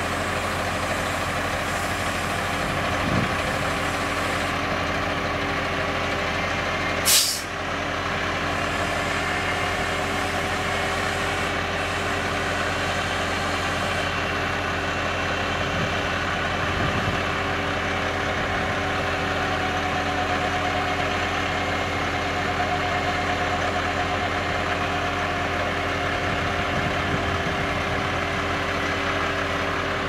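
Heavy diesel truck and skid steer engines running steadily at low speed. About seven seconds in there is one short, sharp burst of compressed-air hiss from the truck's air brakes.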